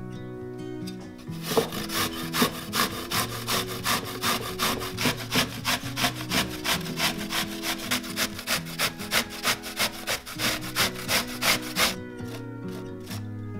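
Vegetables being grated by hand on a grater: rhythmic rasping strokes, about three a second, starting about a second and a half in and stopping shortly before the end, over soft background music.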